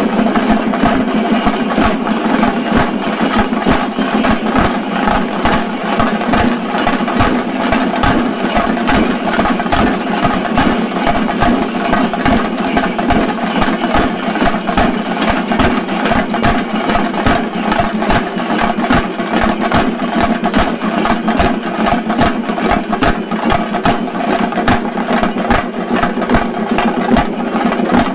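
Chenda drum ensemble of a Kerala shinkarimelam troupe, beating a fast, dense, unbroken roll of strokes.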